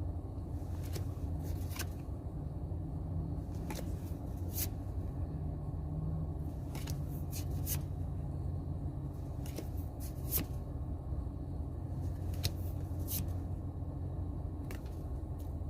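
Pokémon trading cards being handled and flipped through by hand, with scattered light clicks and slides of card on card, over a steady low hum.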